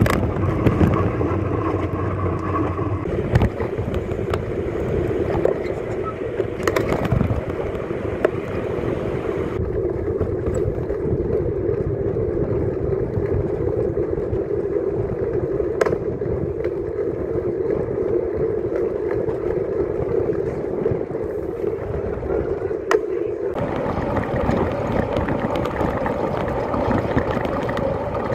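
Wind rushing over the microphone of a camera on a moving bicycle, mixed with road and traffic noise, with a few sharp clicks. The noise changes abruptly several times where the footage is cut.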